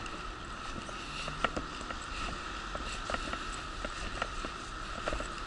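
Wheelchair rolling over pavement: a steady high whine with irregular clicks and rattles, and one sharper knock about one and a half seconds in.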